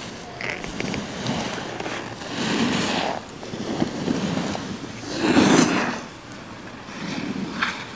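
Alpine snowboard edges carving across hard-packed snow: a scraping hiss that swells with each turn, several times, the loudest about two-thirds of the way through.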